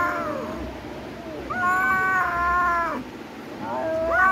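Kitten meowing in long, drawn-out meows: one trailing off near the start, a second of about a second and a half in the middle, and a third beginning near the end.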